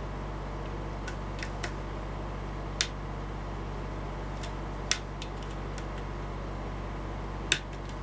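Lock pick working the pins of a Corbin 5-pin brass cabinet lock under tension: small, sharp metallic clicks at irregular intervals, three of them louder and a couple of seconds apart, over a steady low hum.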